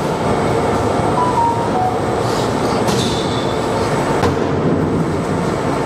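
Large steel mixing kettle with a motor-driven stirrer running in a confectionery factory: a steady mechanical rumble, with a few sharp knocks.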